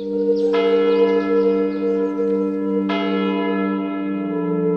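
Church bell tolling, struck twice about two and a half seconds apart, each strike ringing on over a steady low hum.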